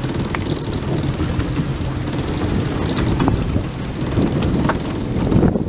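Wind buffeting the microphone over the steady hum of a boat's engine running, with a few faint clicks.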